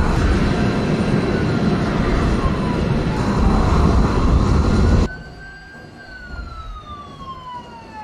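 Siren wailing in slow rising and falling sweeps. For the first five seconds it sits under a loud rushing noise, which cuts off abruptly.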